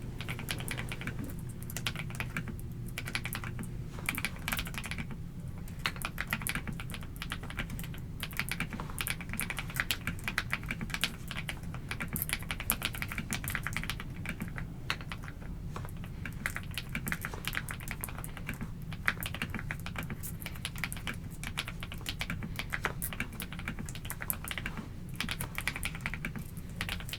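Mechanical keyboard with KTT Peach linear switches being typed on continuously: a fast, uneven stream of key clacks with brief pauses between bursts.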